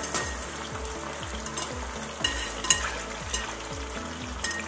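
A fresh batch of raw banana chip slices sizzling hard in hot oil, just dropped into the pot. A wire spider skimmer knocks and clinks against the metal pot several times as the slices are moved around, loudest a little past halfway.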